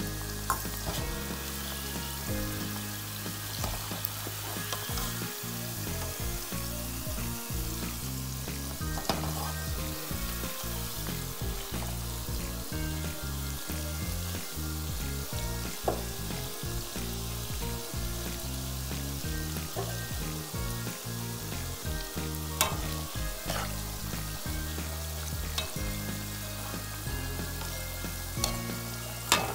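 Chicken skin frying in bubbling oil in a pan: a steady sizzle, with a few sharp clicks spread through it.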